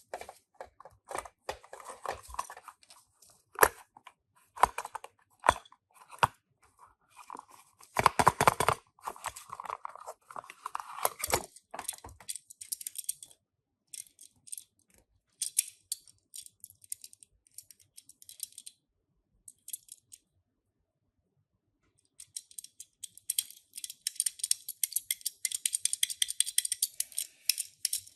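Hands unboxing and handling a Tomica die-cast toy car: irregular clicks, taps and rustles of packaging and the small car, with a dense run of high crinkling near the end.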